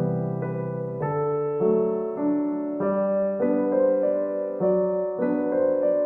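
Background music: a soft piano piece, held chords with a bass note, changing about every half second to second.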